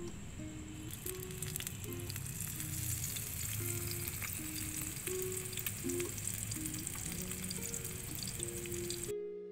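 Masala-coated whole fish frying in hot oil in a small clay pot: a dense crackling sizzle that swells about a second in as the fish goes into the oil, then holds steady. Soft background music with a simple melody plays underneath.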